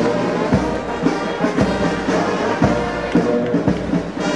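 Brass band playing march music, with a steady drum beat of about two strokes a second.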